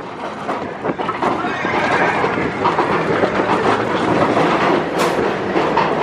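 Big Thunder Mountain Railroad mine-train roller coaster running along its track, heard from aboard the train: a steady rumble with a rapid clatter of wheels on rail and a sharp clack about five seconds in.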